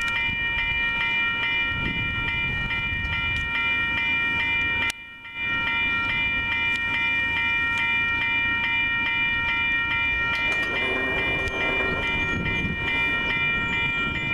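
Railroad grade-crossing bells ringing steadily with repeated strokes as a Metra commuter train approaches; the train's low rumble grows in the second half. The sound drops out briefly about five seconds in.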